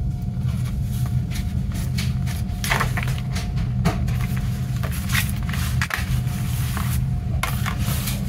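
Pages of a paper CD booklet being turned and handled, a string of short papery rustles and flicks, with light knocks from the plastic jewel case near the end. A steady low hum runs underneath.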